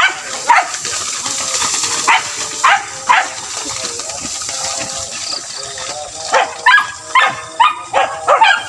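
Hunting beagles baying: a few separate high, falling yelps in the first three seconds, then a quick run of them from about six seconds in, the cry of dogs following game during a chase.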